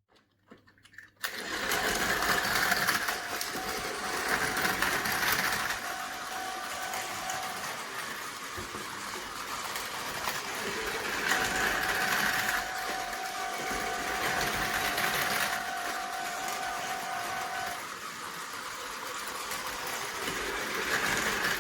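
Two Tomy Plarail battery-powered toy trains running side by side, their small electric motors whirring as they go along the plastic track, starting about a second in. A thin steady whine sounds over the whir twice, for several seconds each time.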